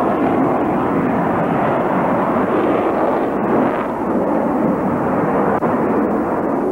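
Sukhoi Su-27 fighter's twin Lyulka AL-31F afterburning turbofan engines, a loud, steady jet noise as the aircraft manoeuvres in display flight.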